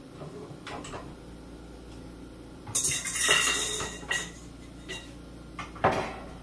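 Stainless steel stand-mixer bowl and metal mixer parts clattering and ringing as they are handled. The clatter is loudest about three seconds in, with a sharp knock near the end.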